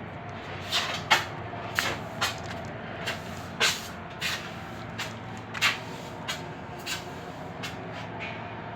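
Oxy-acetylene torch cutting car-door sheet metal: a steady hiss with irregular sharp pops and crackles, about a dozen of them.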